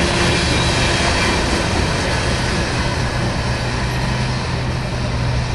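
Union Pacific manifest freight train's tank cars rolling past on steel rails, a steady rumble and wheel noise with a low hum underneath. The noise eases slightly near the end as the last cars go by.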